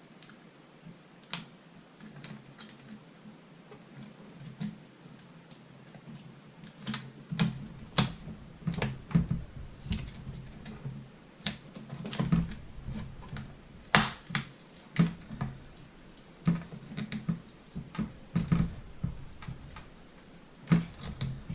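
Irregular sharp plastic clicks and taps, with low knocks of handling, from working on a laptop screen assembly with a plastic prying tool to free the LCD panel. A few scattered clicks at first, then busier from about a third of the way in.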